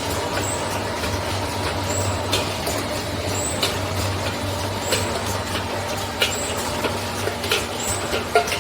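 Can-making production line machinery running. There is a steady low hum, short high-pitched sounds that repeat about every second and a quarter, and scattered clicks and knocks from the machines cycling.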